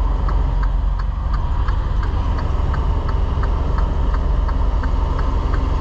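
Semi truck's diesel engine running low and steady, heard from inside the cab, with a light regular ticking about three times a second.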